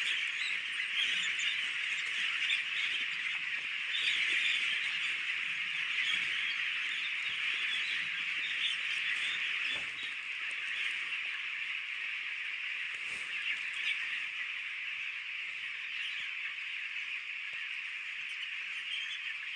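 A large flock of broiler chicks peeping together in a dense, continuous chorus of many overlapping high cheeps.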